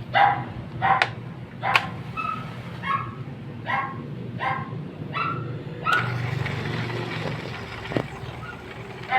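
A dog barking repeatedly, about ten short barks at roughly one and a half a second, loudest in the first two seconds. A steady whirring noise runs for about two seconds from around six seconds in.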